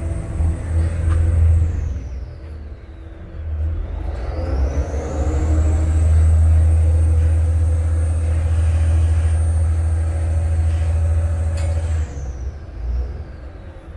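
Vaporetto water bus's diesel engine rumbling with a high whine. The whine drops in pitch about two seconds in, climbs back and grows louder from about four seconds as the engine throttles up to get under way, then falls away near the end as the power eases.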